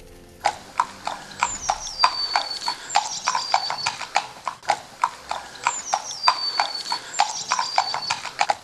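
Hooves of two horses clip-clopping at a walk on an asphalt road: sharp, irregular clacks several times a second. Over them, a high whistled call that falls and then holds repeats a few times.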